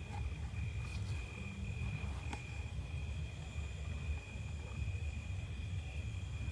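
Insects trilling steadily at two high pitches, over a low rumble, with a couple of faint clicks about a second and two seconds in.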